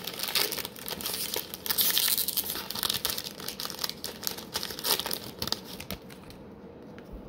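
A trading-card pack wrapper being torn open and crinkled, a quick run of crackling and tearing that stops about six seconds in.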